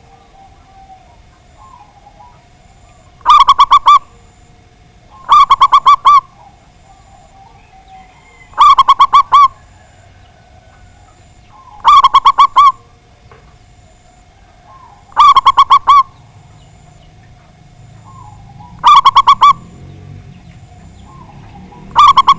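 Zebra dove (perkutut) cooing loudly: seven short phrases of rapid pulsed notes, one every three seconds or so.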